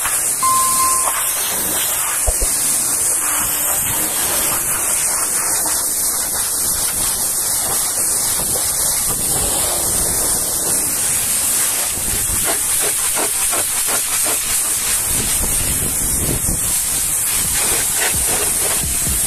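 High-pressure washer jet spraying water onto a truck's cab panels and wheel: a steady, loud hiss.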